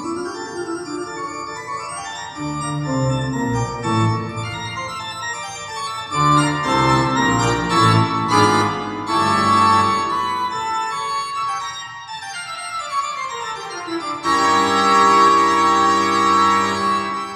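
Music with sustained keyboard chords, played back through a KT150 push-pull valve amplifier and loudspeakers. A slow falling sweep runs through the second half, and a loud full chord comes in about three seconds before the end.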